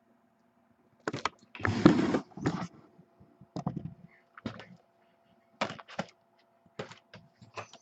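A box of trading-card packs being opened by hand: bursts of crinkling and tearing with sharp clicks and rustles, starting about a second in, the longest tear near two seconds.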